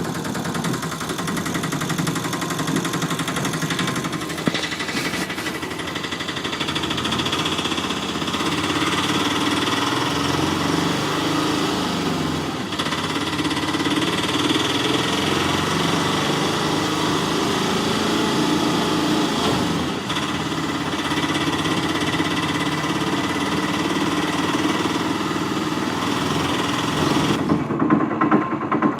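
A toy construction vehicle's small motor and gearbox running steadily, with a high whine over a wavering lower drone.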